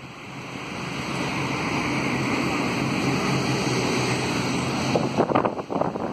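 A steady motor engine hum that swells over the first two seconds and then holds, with a few sharp knocks about five seconds in.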